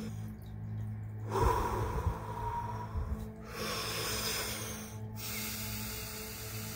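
A man doing Wim Hof power breathing: deep, forceful breaths in and out through the mouth, one after another, each lasting a second or two, the strongest about one and a half seconds in. Steady background music plays under the breathing.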